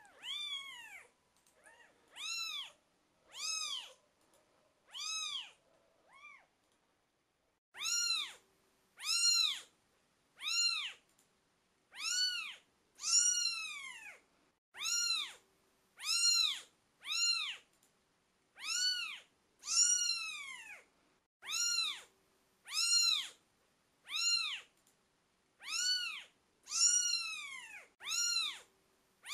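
Twelve-day-old British Shorthair kittens meowing: a long run of high, thin calls, each rising and falling in pitch, about one a second, with a short pause about seven seconds in.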